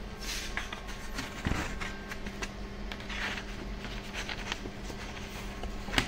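A steady low electrical hum runs throughout, with scattered short rustles and clicks on top; the loudest click comes about a second and a half in.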